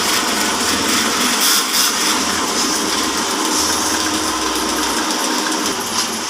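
Horizontal band sawmill running with a steady mechanical whir.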